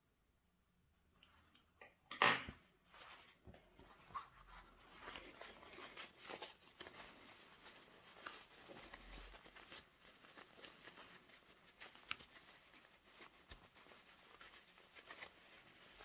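Faint handling of fabric and sewing materials: quiet rustling and rubbing with scattered light clicks, after a sharper knock about two seconds in.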